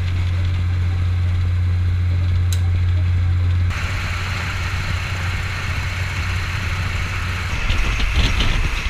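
Passenger train: a strong, steady low drone inside the carriage, which about four seconds in gives way to rushing wind and running noise through an open window as the train travels along. A few short clicks come near the end.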